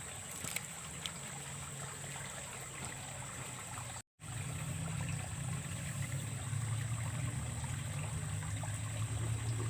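Steady trickle of flowing water with a thin steady high tone over it. The sound cuts out for a moment about four seconds in, and a louder low hum runs after it.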